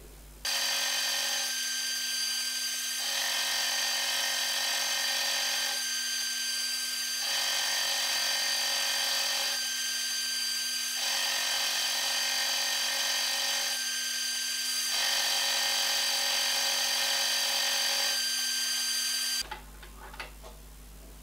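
Vertical milling machine running, its end mill cutting a mild steel bracket: a steady motor whine with cutting noise that swells and eases in about five passes. It starts abruptly about half a second in and stops abruptly near the end.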